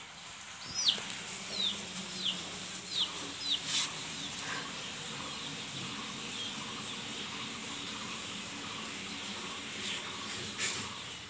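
A small bird chirping: a quick run of about six short chirps, each falling in pitch, in the first four seconds, over a steady background hiss with a couple of faint clicks.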